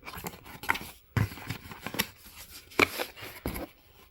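Camera box contents and packaging being handled and unwrapped: rustling with several short sharp clicks and knocks, the loudest a little before three seconds in.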